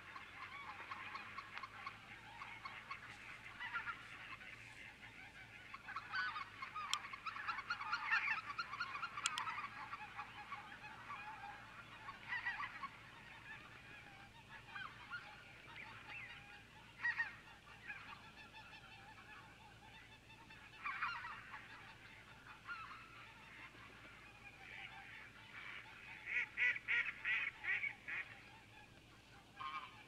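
A flock of wild geese calling continuously, many overlapping honks at once. The calling swells about a quarter of the way in and again near the end, with rapid calls.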